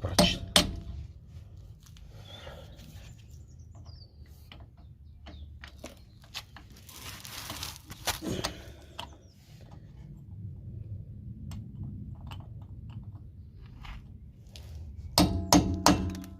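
Hammer blows on a chisel driven against a seized Torx screw on a car's rear brake drum, each strike a sharp metallic clink with a short ring. Two blows come right at the start and one about eight seconds in, with a quick run of ringing strikes near the end.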